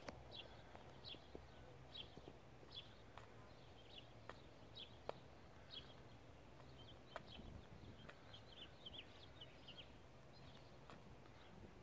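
A few faint, scattered sharp knocks as a greater roadrunner beats its prey against the ground. Over them, short high chirps repeat roughly once a second.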